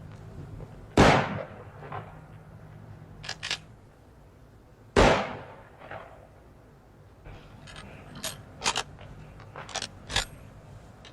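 Two pistol shots about four seconds apart, each with a short fading tail, with quieter sharp metallic clicks and clinks between and after them.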